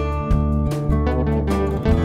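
Background instrumental music: plucked string notes, likely guitar, struck about every half second over sustained bass notes.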